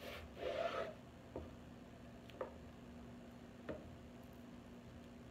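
A chef's knife slicing a Persian cucumber into thin strips on a plastic cutting board. A short crisp crunch comes at the start, then three separate knife taps on the board about a second apart, over a faint steady hum.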